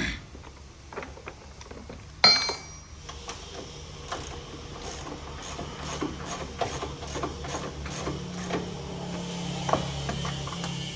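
Metal tool work during a car repair. About two seconds in there is one sharp metallic clank that rings briefly, then a run of regular mechanical clicks, about three a second, over a steady low hum.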